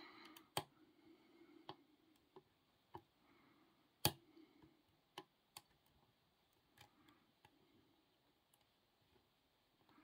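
Faint, irregular clicks of a lock pick working inside a Castle 200/20 padlock, with the loudest click about four seconds in.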